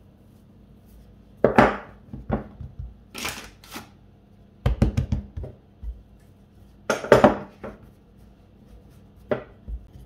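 Wooden rolling pin working a ball of Linzer dough on a floured wooden worktop: a series of irregular rolling strokes and knocks on the counter, about half a dozen, some short and some lasting half a second.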